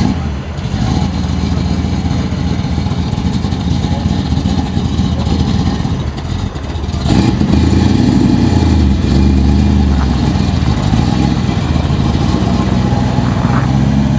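1957 Chevrolet's V8 engine fires up and idles with a deep, steady rumble. About seven seconds in it gets louder and stays up as the car pulls away.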